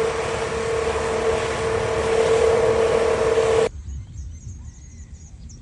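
Boat engine running steadily with a droning whine over rushing noise, cut off abruptly about three and a half seconds in. After it, a much quieter stretch with a few faint chirps.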